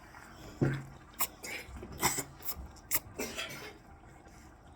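Close-up eating sounds: a handful of short, sharp clicks and wet mouth smacks from chewing spaghetti and hot dog, with a low thump a little over half a second in.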